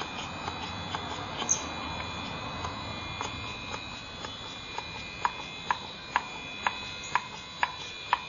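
Small hand suction pump being worked to draw water up into a disc permeameter's tube, its strokes clicking about twice a second, sharper and louder in the second half.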